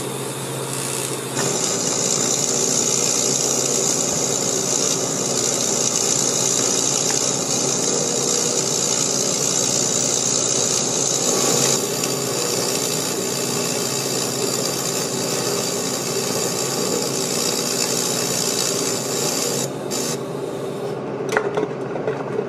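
AC TIG welding arc on thin aluminum can metal at a low 20 to 30 amps, buzzing steadily. The sound sharpens about a second and a half in and cuts off near the end as the arc is broken.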